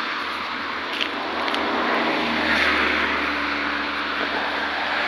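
A passing motor vehicle: a steady rush of engine and tyre noise over a low hum that swells to its loudest about halfway through and then eases off.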